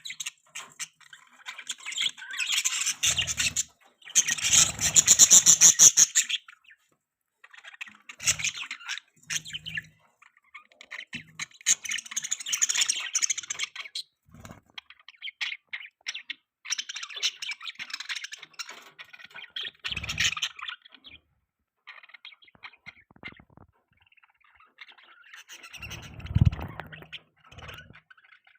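Budgerigar chirping and warbling in bursts of rapid, scratchy chatter with short pauses between them. A low thump sounds near the end.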